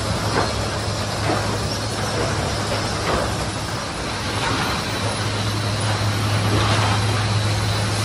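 Sawmill machinery running inside the mill building: a steady low hum under a wash of noise, with scattered knocks and clatter from lumber moving along the chain conveyors.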